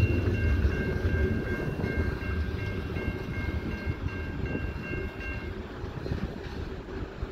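Freight cars rolling over the rails as the tail of the train passes and moves away, the rumble fading. A grade-crossing warning bell rings in steady repeated dings and stops about five and a half seconds in.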